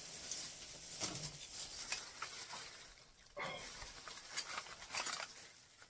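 Rustling and crinkling of a paper wrapping being opened by hand, with scattered small clicks from handling the item inside.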